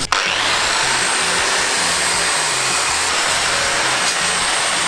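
Handheld power tool starting up with a brief rising whine and then running steadily with a loud, even rasping noise, cleaning rust off a steel fuel tank. Faint background music underneath.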